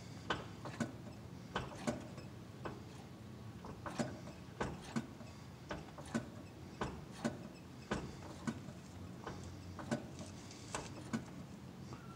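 Clutch pedal being pumped to bleed the hydraulic clutch: light, irregular clicks and ticks from the pedal and clutch linkage, one or two a second, over a low steady hum.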